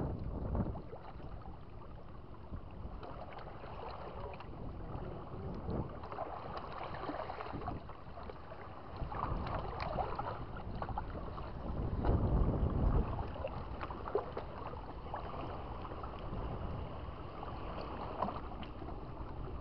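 Wind rumbling on the microphone over small waves washing against breakwater rocks, swelling louder about twelve seconds in, with a few faint clicks of handling.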